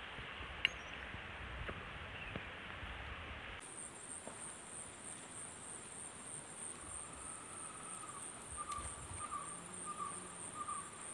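Riverside ambience dominated by insects shrilling in a steady high drone, which sets in abruptly about three and a half seconds in. A softer, lower pulsing call joins in during the second half.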